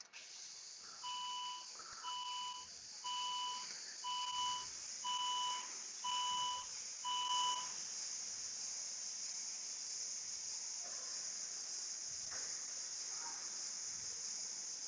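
Seven steady electronic beeps, about one a second, each a two-tone chime, over a steady high hiss; the beeping stops about halfway through.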